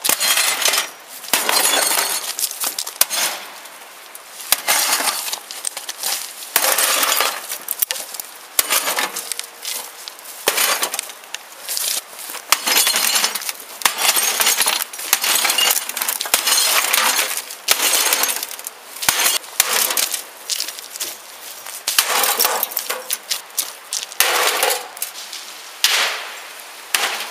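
A microwave oven being smashed: repeated irregular blows, with glass breaking and shards and metal parts clinking.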